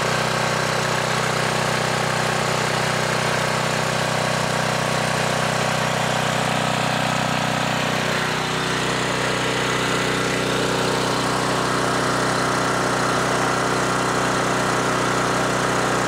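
A 5,600-watt portable generator's Briggs & Stratton engine running steadily with its fuel valve shut, burning the fuel out of the carburettor to clear the jets and passages.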